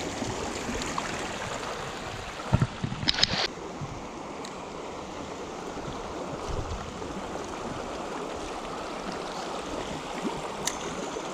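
Small creek flowing: a steady rush of running water. A brief cluster of knocks comes about three seconds in.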